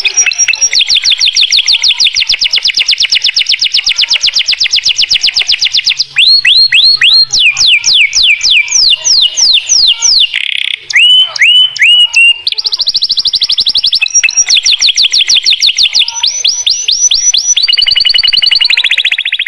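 White domestic canary singing in full song: rapid rolling trills of repeated notes, a middle stretch of slower, downward-sliding whistled notes, then rapid trills again.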